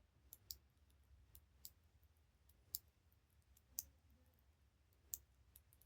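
Faint, irregular clicks of a combination padlock's number wheels being turned a step at a time, about seven in all, as the dial is probed for its notch with a decoder shim.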